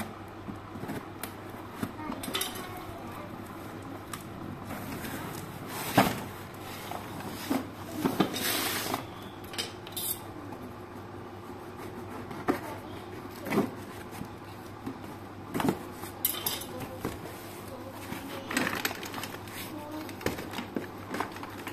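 A cardboard shipping box being slit open and pulled apart, with scraping, rustling and scattered knocks, the sharpest about six seconds in. Near the end the metal tubes of a flat-packed shoe stand clink and knock together as they are handled.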